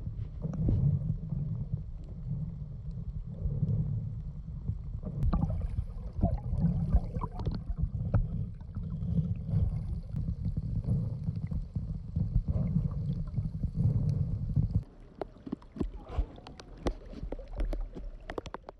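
Low rumble of a moving vehicle with scattered knocks and clicks. The rumble stops about fifteen seconds in, leaving fainter knocks and clicks.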